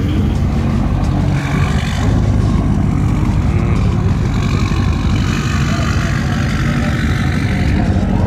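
Custom 1957 Chevrolet's engine running with a loud, deep exhaust rumble as the car pulls away at walking pace, a little louder about two seconds in.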